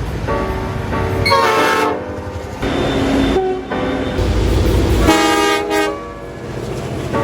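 A train horn sounding several blasts in a row, each a second or so long, with a low rumble about midway.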